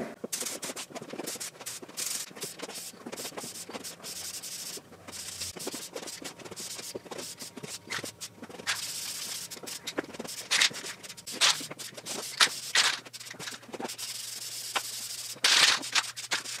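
Aerosol spray paint (Dupli-Color Vinyl and Fabric) hissing from the can in bursts, with the loudest spraying about nine seconds in and again near the end. Scattered clicks and knocks run between the bursts.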